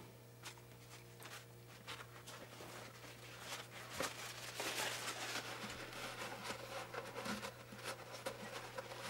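Faint rustling and light ticking of a cloth or paper towel being handled and rubbed against the metal head of a vintage sewing machine, starting a few seconds in, over a low steady hum.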